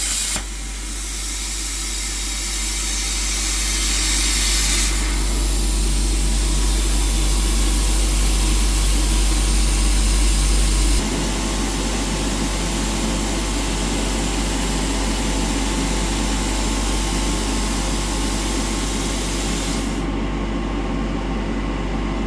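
RTECH P51D air plasma cutter on a CNC table cutting 3 mm steel sheet at 40 amps: a steady, loud hiss of the arc and air jet over a constant electrical hum. The hiss changes tone a few times, and about twenty seconds in its high edge drops away.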